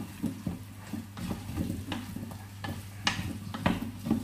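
A utensil stirring chicken pieces and potatoes in the metal bowl of a Cookeo multicooker, with several irregular scrapes and knocks against the pot over a light sizzle of the food browning.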